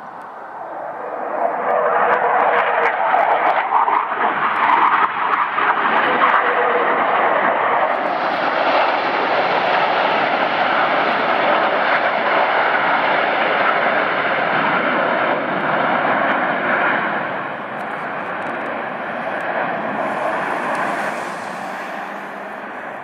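Blue Angels F/A-18 Hornet jets flying past with their jet engines running. The noise builds about two seconds in, stays loud and steady for most of the pass, then eases off near the end.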